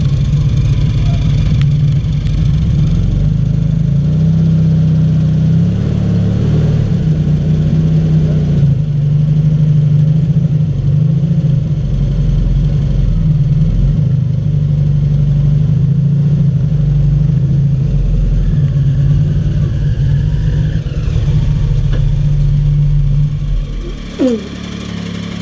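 Rewaco trike's engine running at low revs with small changes of throttle while it is manoeuvred at walking pace, then switched off near the end.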